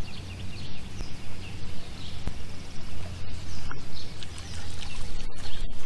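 Open-air sound on a fishing boat on the water: a steady low hum with scattered light clicks and splashes.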